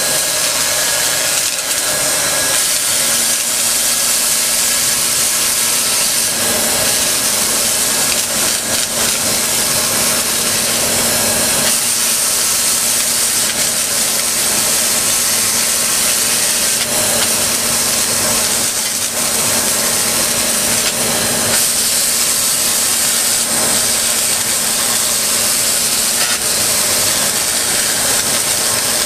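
A 1000-watt hand-held laser cleaner ablating grime off white marble: a steady loud hiss, with a low hum joining about three seconds in.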